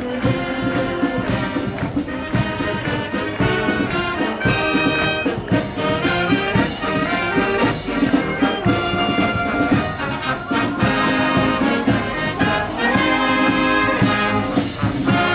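Marching wind band playing a tune, with brass and saxophones carrying the melody over a steady beat.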